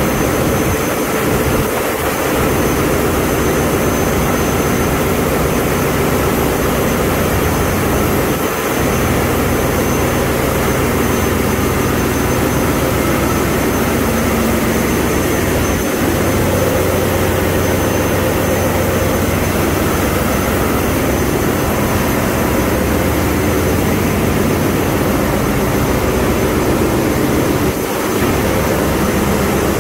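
Wärtsilä 6L20 six-cylinder medium-speed diesel auxiliary engine (generator set) running steadily at about 900 rpm, a loud, unbroken engine-room din.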